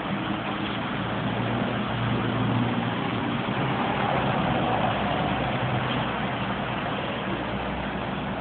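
Road traffic noise from motor vehicles on the main road, with an engine running steadily and a heavier pass strongest between about one and five seconds in.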